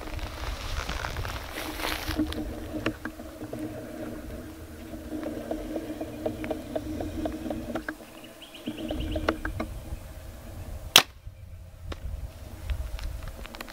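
A low rumble with faint ticks, then near the end a single sharp crack as a Hoyt Defiant 34 compound bow, drawn at 84 lb, looses an arrow.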